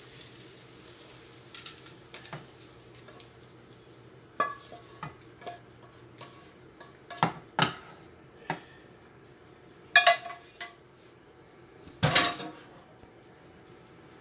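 Wooden spatula scraping and knocking against a metal saucepan as toasted rice is worked into it, with sharp clacks of utensil on pan every second or so, the loudest about ten and twelve seconds in. A faint sizzle from the hot rice fades away in the first couple of seconds.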